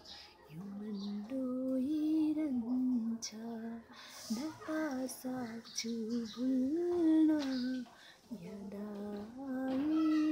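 A woman singing a Nepali song solo, with no instruments heard: slow phrases of held, wavering notes, with short breaks between phrases about four and eight seconds in.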